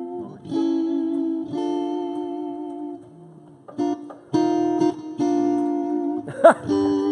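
Amplified guitar playing held chords at a band sound check, with a short break about three seconds in. Near the end comes a brief swooping slide in pitch, the loudest moment.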